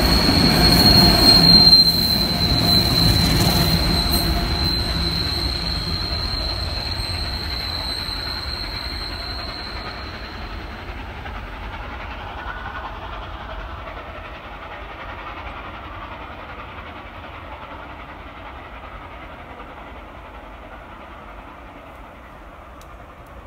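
Passenger carriages rolling past on steel rails as the tail of the train goes by, with a steady high-pitched wheel squeal and a few clicks of wheels over rail joints. The squeal fades out about eleven seconds in, and the rumble of the wheels dies away steadily as the train recedes.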